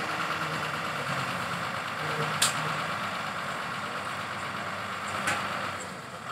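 Diesel engine of a truck-mounted borewell drilling rig running steadily, with two sharp clicks about two and a half and five seconds in.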